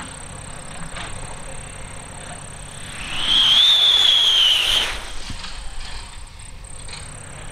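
Sky rocket firework launching, a shrill whistle with hiss about three seconds in that lasts nearly two seconds, rising a little in pitch and then falling away as it climbs.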